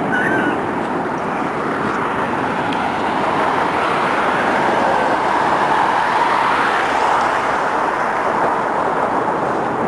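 Steady street traffic noise, swelling a little around the middle as a vehicle goes by.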